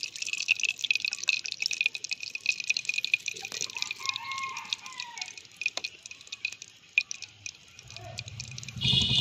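Vegetable oil poured in a stream into an iron kadai, then a steady crackling hiss with many small ticks as the oil heats over a wood fire. A brief louder rumble comes near the end.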